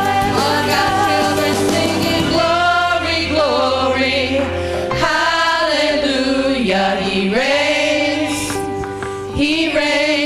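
A women's vocal group singing a gospel song together over steady sustained instrumental backing.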